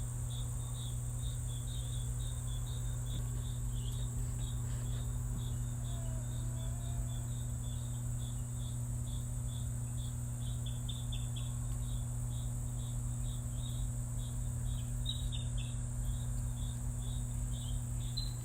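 Crickets chirping at night, short chirps repeating several times a second without a break, over a steady low hum and a steady high hiss.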